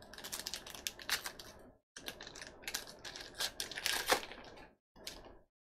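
Plastic wrapper of a 2019 Topps Allen & Ginter baseball card pack being torn open and crinkled by hand. It crackles in two long spells with a short pause between, then once more briefly near the end.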